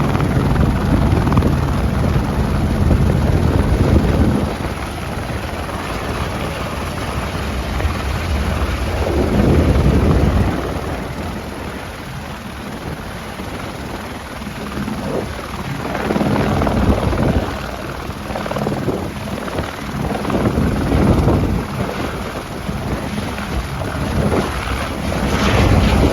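Eurocopter AS350 B3 single-turbine helicopter running, loudest in the first few seconds and then lower, with repeated gusts of wind buffeting the microphone.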